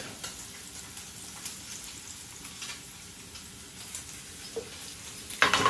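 Diced bacon sizzling in a nonstick frying pan, a steady soft hiss, with a few light scrapes as a spatula stirs it. There is a louder, sharper burst of sound near the end.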